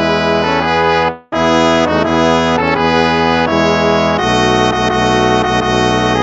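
Instrumental hymn played in brass tones: slow sustained chords that change every second or so, with a brief sharp break about a second in.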